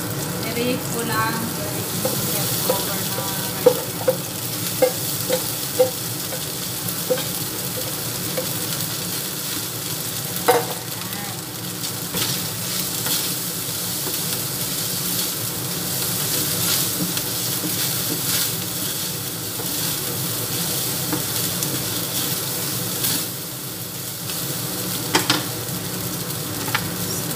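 Rice and beef sausage frying in a pan with a steady sizzle, stirred with a wooden spatula. The spatula clicks and knocks several times a few seconds in, once near the middle, and twice near the end.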